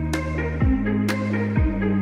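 Electronic background music with a steady beat about once a second and a deep bass line that slides down between held notes.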